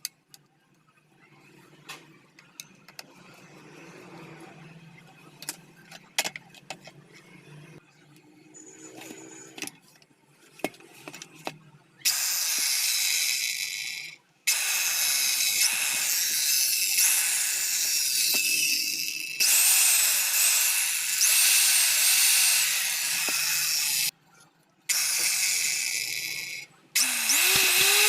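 Handheld electric cutter machine's motor running at high speed in several runs, stopping briefly about twelve seconds in, and again near the end. Before the first run there are only faint clicks from handling.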